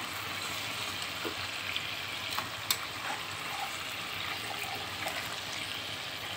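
Chicken legs sizzling steadily as they shallow-fry in hot oil in a nonstick pan, with a few sharp clicks of metal tongs as the pieces are turned.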